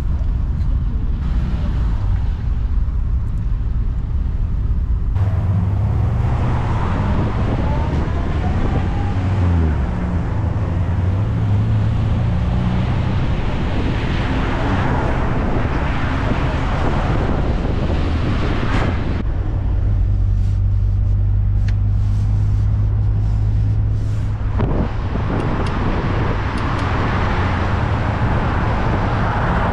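Morris Minor's engine and road noise heard inside the car while driving, a steady low engine note whose pitch shifts several times as the car speeds up and slows.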